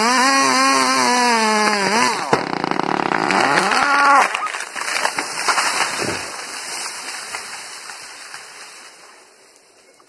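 Chainsaw running under load in the back cut of a large tree trunk, its pitch wavering. About two seconds in there is a sharp crack and the saw revs up, then the falling tree crashes down, with crackling and breaking that dies away over the last few seconds.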